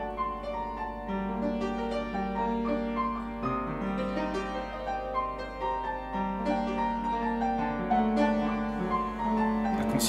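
Slow background piano music with long held notes and a gentle, unhurried melody.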